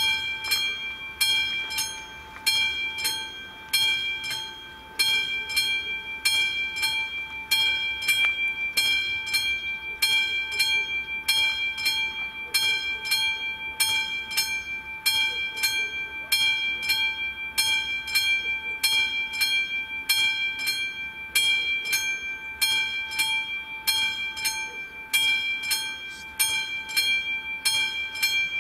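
Railway level crossing warning bell ringing in an even rhythm, a strike a little more than every half second. It starts just as the crossing activates and the red lights come on, warning of an approaching train.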